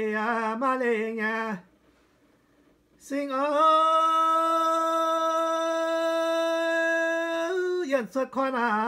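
Solo unaccompanied voice singing a slow traditional chanted song: a short wavering phrase, a pause of over a second, then one long held note of about four seconds, and the next phrase begins near the end.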